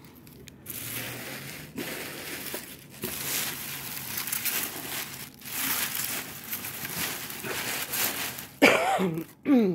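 Bubble wrap and crinkly packing material rustling and crinkling in irregular spurts as hands rummage through a cardboard box.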